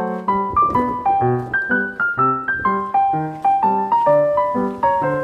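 Background piano music: a light melody of quick, separate notes, about three or four a second, over lower bass notes.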